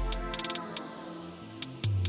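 Background electronic music with crisp, regular hi-hat-like ticks over sustained chords. The deep bass fades out about half a second in.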